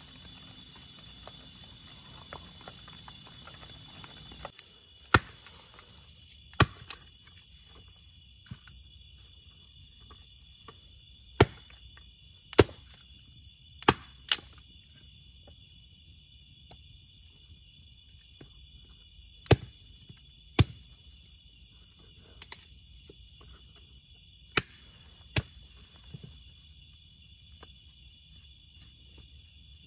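Small fire of burning sticks giving off sharp, scattered pops and cracks, about a dozen over twenty-five seconds, over a steady chorus of crickets and other night insects in several pitches. A different steady insect drone cuts off about four seconds in.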